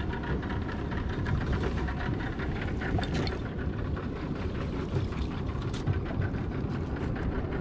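Outboard motor of a small open fishing boat running steadily, with a couple of sharp clicks about three and six seconds in.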